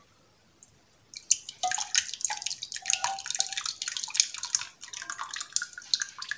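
Thick cooked strawberry syrup poured through a wire-mesh sieve into a glass bowl: wet splashing and dripping that starts about a second in and stops near the end.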